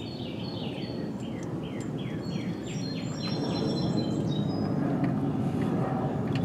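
A songbird sings a quick run of about ten short descending chirps over the first three seconds. Beneath it is a steady rushing noise that swells in the second half.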